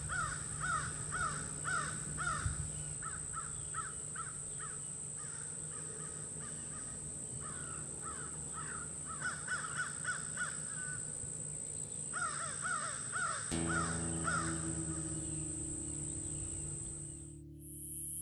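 Crows cawing in bouts of short, repeated caws, about two or three a second. Background music comes in near the end.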